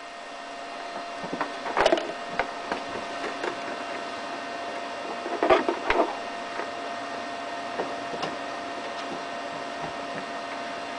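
Knocks and clatter from a camera being set down and handled, in two short clusters about 2 and 6 seconds in, over a steady faint hum.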